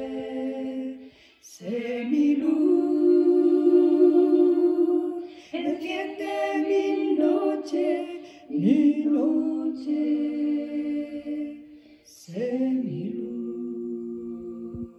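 An older woman's solo voice singing a slow hymn with no accompaniment, in long held notes. She sings about five phrases, with brief breaths between them.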